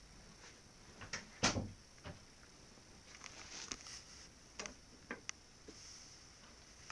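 A few irregular knocks and clicks, the loudest about a second and a half in, over a faint steady hiss.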